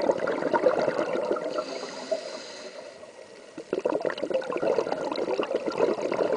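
Scuba diver's regulator breathing underwater: a stream of exhaled bubbles crackling and gurgling, then a short high hiss of an inhale as it fades. The bubbles start again abruptly a little past the middle.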